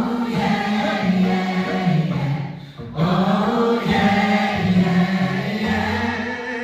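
Several voices singing together in sustained harmony, with a short break about three seconds in before the singing picks up again.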